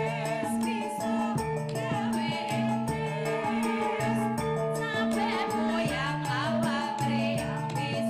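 Javanese gamelan music with keyboard, playing a steady beat with repeating low notes, and female voices singing over it in wavering, ornamented lines.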